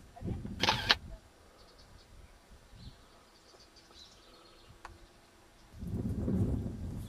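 A sharp, brief burst of handling noise under a second in, like a click on a handheld camera. Then quiet with a few faint chirps, and low wind rumble on the microphone from about six seconds in.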